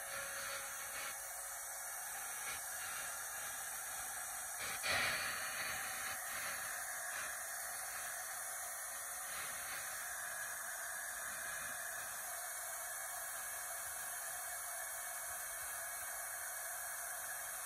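Handheld hair dryer blowing a steady hiss of air, with one brief knock about five seconds in.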